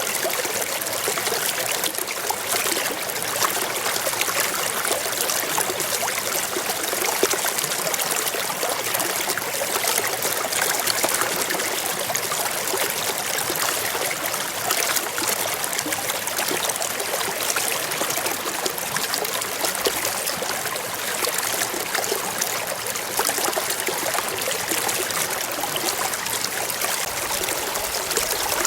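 Waterfall: a steady, unbroken rush and splash of falling, flowing water.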